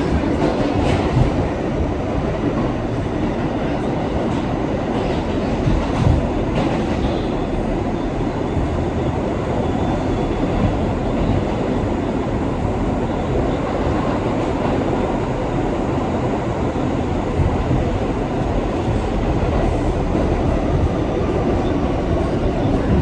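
Subway train running, heard from inside the car: a steady rumble and rattle of wheels on the track, with a few sharp knocks, one about a second in and one at about six seconds.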